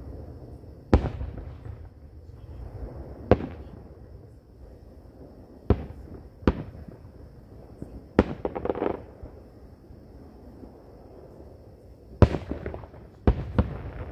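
Distant aerial fireworks shells bursting: about eight sharp bangs at irregular intervals, each trailing off in an echo, with a short crackle after the bang about eight seconds in.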